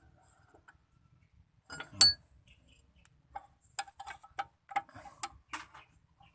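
A 17 mm wrench working on a Suzuki Multicab's disc brake caliper: one sharp metal clink about two seconds in, then an uneven run of light metallic ticks.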